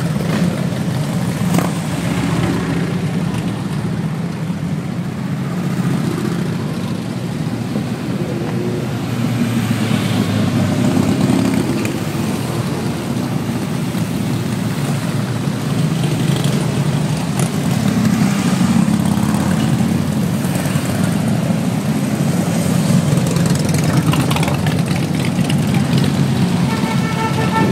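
A procession of touring motorcycles riding past one after another. Their engines run as a continuous low drone that grows louder each time a bike goes by.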